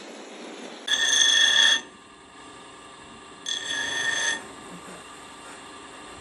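A bench grinder running, with a metal motorcycle brake shoe pressed against its spinning wheel twice. Each contact gives a high, ringing squeal about a second long that starts and stops abruptly.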